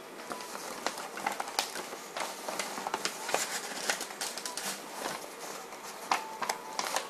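Irregular small clicks and knocks, several a second, over a light hiss.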